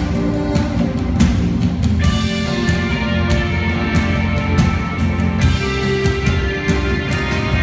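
Live band playing an instrumental passage with guitar and drums, with regular cymbal hits over sustained chords and no singing.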